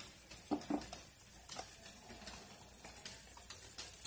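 Steak and vegetables sizzling faintly in a skillet, with a few light clicks.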